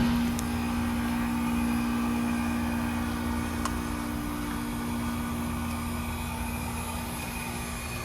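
2004 Carrier Comfort 10 heat pump outdoor unit running during its defrost cycle. There is a steady low hum with a whooshing rush that eases slowly, and two faint ticks, one near the start and one a few seconds in.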